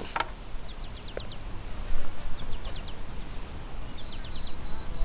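High-pitched chirping: quick little trills of four to six notes, repeated about every one and a half seconds, with a steady high trill near the end, over a low rumble.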